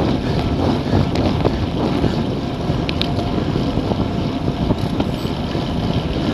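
Wind buffeting the microphone of a bicycle-mounted action camera at racing speed, about 40 km/h: a steady, heavy rumble.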